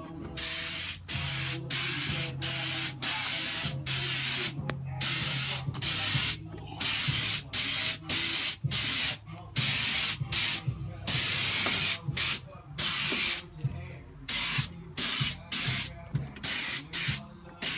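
Gravity-feed air paint spray gun hissing in repeated bursts of about half a second to a second as the trigger is pulled and released, laying automotive paint on a steel roll cage. A low steady hum runs underneath.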